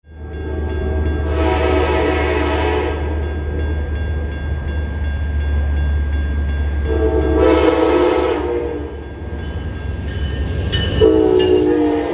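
Diesel locomotive's multi-chime air horn sounding three blasts, the first two long and the last shorter, over the low, steady rumble of the train, which fades near the end.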